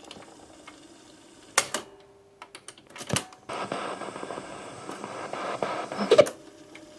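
Cassette player keys on a boombox clicking three times as the tape is stopped and restarted, with a steady hiss from the running tape between the second and third clicks.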